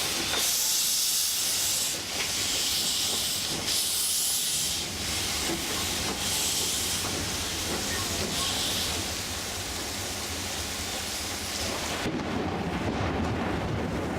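Steam hissing from Black River & Western's Alco 2-8-0 steam locomotive #60, swelling and easing in irregular surges. About twelve seconds in the hiss stops abruptly and a low rumble is left.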